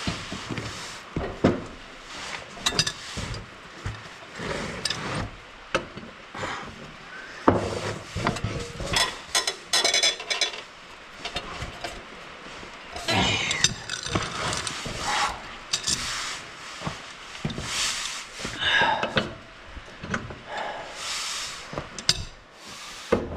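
Hand tools working on a lawn mower blade and spindle: irregular metal clanks, knocks and scraping as a stuck blade is worked at to break it loose.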